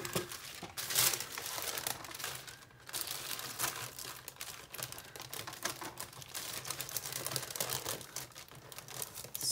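Wax paper rustling and crinkling as it is handled, with irregular clicks and knocks as a plastic Fiskars sliding paper trimmer is set on it and lined up.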